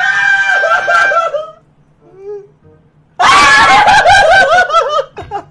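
Men screaming and laughing in excitement, cheering a win. The outburst breaks off for about a second and a half, then bursts out again loudly and high-pitched.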